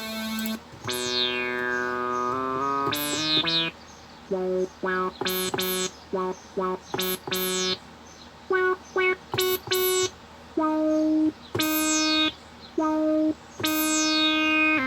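Synthesizer chords played from an Akai MPK249 MIDI keyboard controller: held chords whose bright top falls away in a downward filter sweep, with runs of short staccato chords between them.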